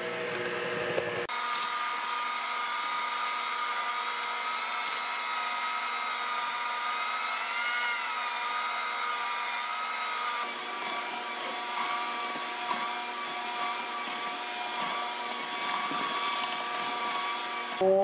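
KitchenAid electric hand mixer running steadily with its beaters in brownie batter: a constant motor whine with a slight wobble in pitch. The sound changes abruptly about a second in and again about ten seconds in, and the mixer stops near the end.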